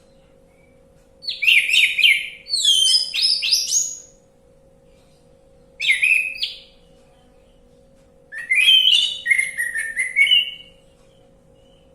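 Orange-headed thrush singing: three bursts of quick, varied whistled phrases, the last the longest, separated by pauses of a second or two. A faint steady hum lies beneath.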